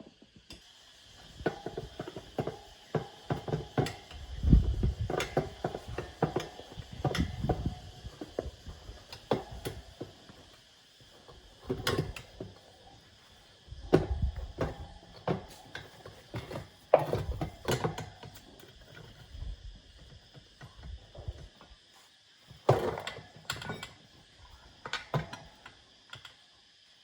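Hand tools working on a motorbike: irregular metallic clicks, clanks and knocks in clusters, with a ratchet-like clicking.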